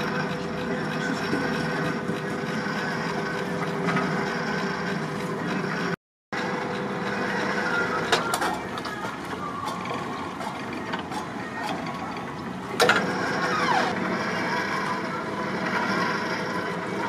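Dockside crane's hoist running with a steady mechanical hum while it lifts a wooden sailboat mast, with a few sharp knocks and clicks of the rigging and fittings.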